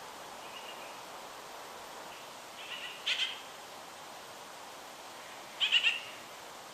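A bird calling in forest: two short runs of quick, high notes, about three seconds in and again near the end, over a steady background hiss.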